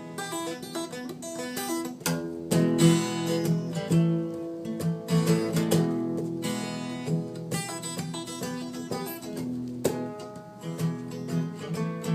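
Acoustic guitar strummed and picked, a run of chords with sharp strokes.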